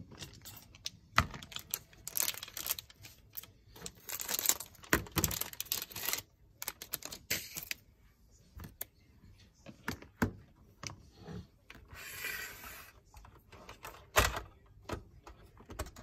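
Anti-static plastic bag of a new laptop hard drive crinkling and rustling as it is opened and the drive is pulled out, with scattered clicks and knocks from handling the drive and console parts. A second-long scraping hiss comes about twelve seconds in.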